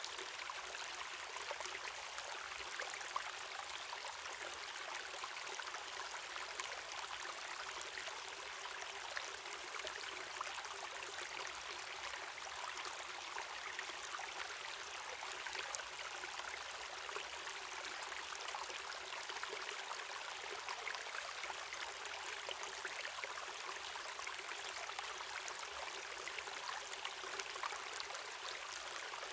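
Waterfall and river water rushing steadily in an even hiss, with small splashes and droplets ticking through it.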